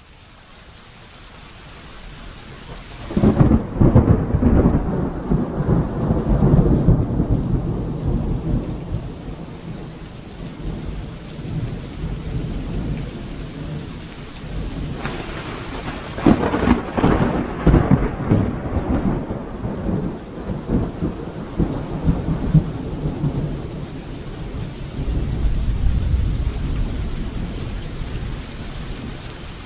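Steady rain during a thunderstorm, with rolling thunder: a sudden loud clap about three seconds in that rumbles away over several seconds, another sharp clap with long rumbling about halfway through, and a lower swell of rumbling near the end.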